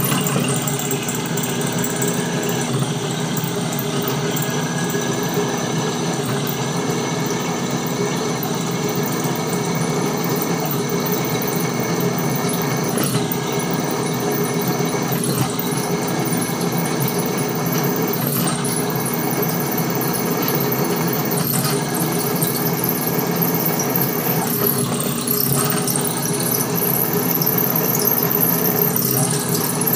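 Drill press running with its bit fed down into a steel shift lever shaft, drilling the hole for a grease fitting. A steady machine sound, with a few high tones that come and go during the cut.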